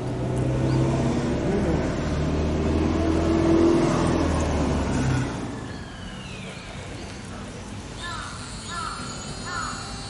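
A motor vehicle's engine running steadily nearby, ending abruptly a little past halfway. After that, crows caw several times in quick succession near the end.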